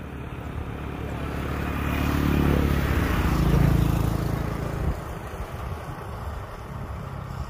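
An engine of a passing motor vehicle, growing louder to a peak a few seconds in, then dropping away about five seconds in.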